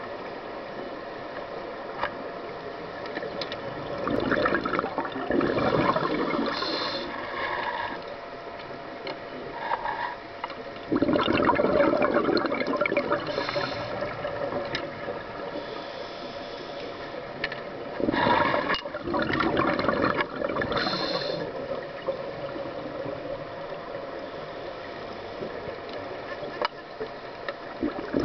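Scuba diver's regulator exhalations heard underwater: rushing, gurgling bubble bursts, each two or three seconds long, come several times over a steady underwater background.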